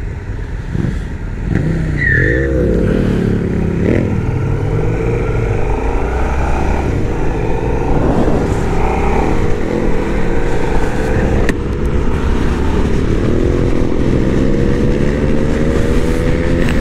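Yamaha Bulldog BT1100's air-cooled V-twin engine accelerating under the rider, its pitch climbing steadily. About twelve seconds in it dips briefly as it shifts up, then climbs again.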